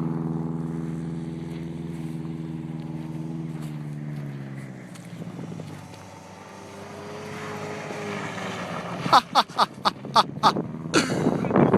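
A car engine runs steadily at a held pitch, sags slightly and fades away about five seconds in, and a fainter engine note follows. Near the end come several loud, sharp knocks in quick succession.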